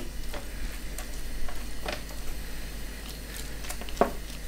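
Metal tongs tossing grilled chicken pieces through peri peri sauce and yogurt in a foil-lined tray: soft wet squishing with a few light clicks of the tongs.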